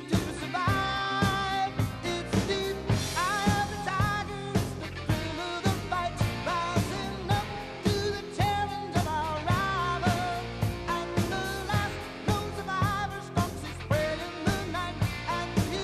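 Background music: a pop-rock song with a sung vocal over a steady drum beat.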